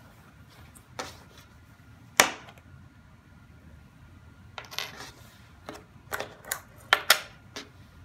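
Hard plastic anti-theft buckles clicking and clacking as they are handled. There is one sharp clack about two seconds in, the loudest, then a run of quicker clicks and knocks in the second half.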